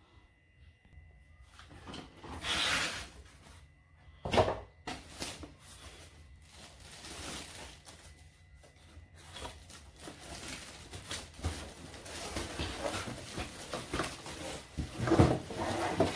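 Box and packaging being handled while a coffee machine is unboxed: rustling and small clicks, with a single knock about four seconds in and busier rustling in the second half.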